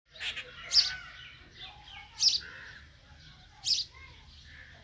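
Sparrow chirping: short, sharp, high chirps about every one and a half seconds, with softer chirps in between.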